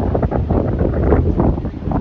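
Heavy wind buffeting the microphone in uneven gusts, loud and low.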